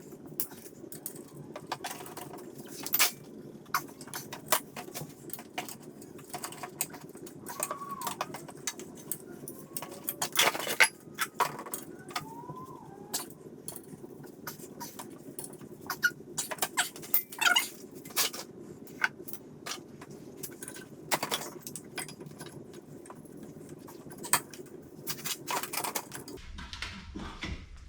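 Metal tools and brake caliper parts clinking and clicking as they are handled during a brake job, over a steady low hum, with a few brief high chirps about a third of the way in.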